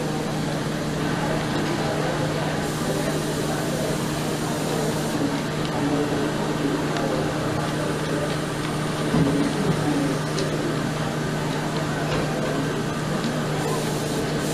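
Steady ventilation hum in a large hall under an indistinct background murmur of voices, with a brief louder noise about nine seconds in.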